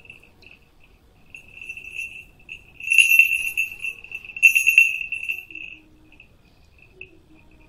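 Falconry bell on a red-tailed hawk jingling, loudest twice, around three and around four and a half seconds in, as the hawk flaps its wings on the hand, then dying down to a faint tinkle.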